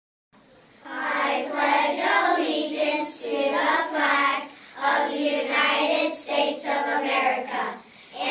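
A class of young children reciting the Pledge of Allegiance together in unison, starting about a second in, with short pauses between phrases.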